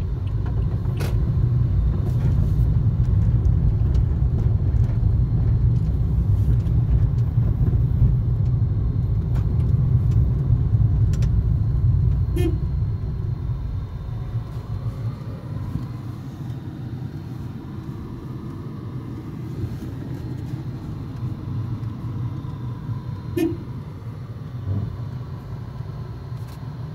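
Car cabin noise while driving slowly: a steady low rumble from the engine and tyres, dropping to a quieter level about halfway through, with a few faint clicks.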